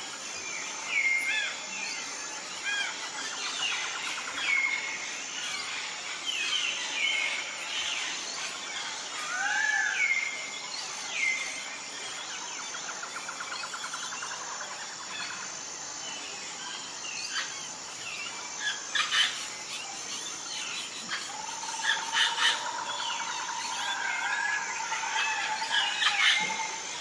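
Birds calling outdoors: many short arched chirps and whistled notes, with a few rapid trills and one longer, steadier call late on.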